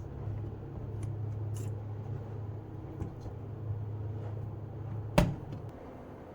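A steady low hum with a few faint clicks, then one sharp loud click about five seconds in, after which the hum stops.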